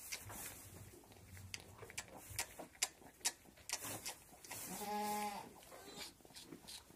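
Newborn goat kid sucking milk, making small wet clicks two or three times a second. A short, steady bleat comes about five seconds in.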